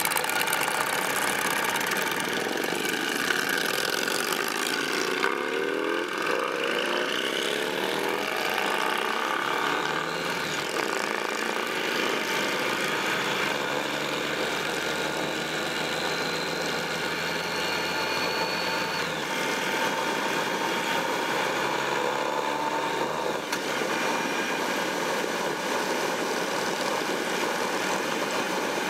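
Motorcycle engines pulling away and accelerating, the note rising in pitch in the first several seconds and again mid-way before dropping back as a gear is changed, then cruising steadily. Constant wind rush from riding at road speed runs under the engines.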